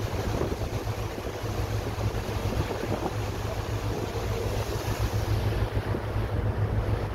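Wind buffeting the microphone in a steady low rumble over an even rush of open lake water, as heard from a boat on the lake.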